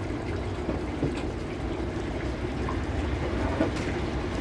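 Washing machine running with water in it: a steady low hum with a few faint clicks.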